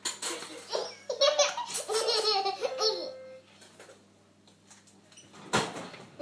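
A baby laughing in a run of loud, breathy bursts for about three seconds, then quieting, with a short loud rush of noise about five and a half seconds in.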